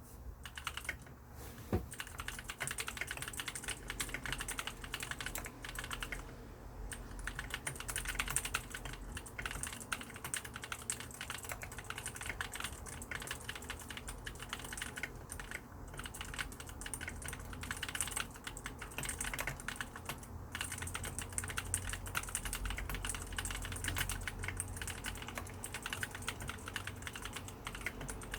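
Mechanical keyboard with lubricated clicky blue switches being typed on: a fast, continuous run of key clicks with a few brief pauses.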